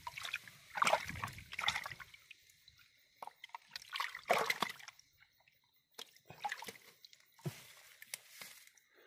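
Water sloshing and splashing in irregular bursts, the strongest in the first half, with quieter gaps between.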